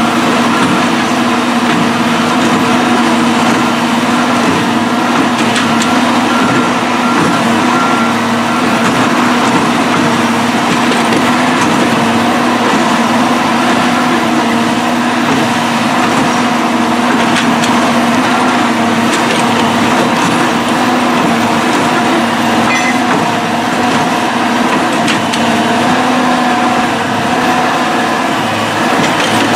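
Engine of a rail-mounted tie-replacement machine running steadily under work, with a few short knocks scattered through.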